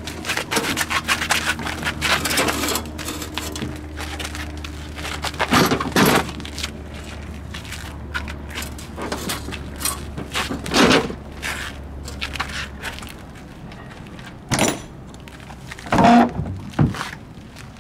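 Clunks, knocks and scrapes of a stand-up jet ski's hull being slid off a van rack, down an aluminium ramp and onto a beach dolly, with a few heavier thumps. A low steady hum runs under the first two-thirds.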